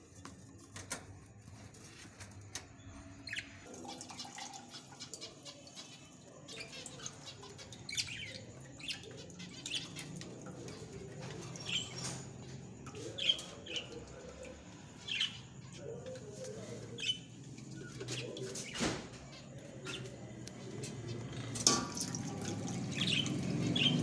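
Caged zebra finches calling: short, separate chirps, one every second or so.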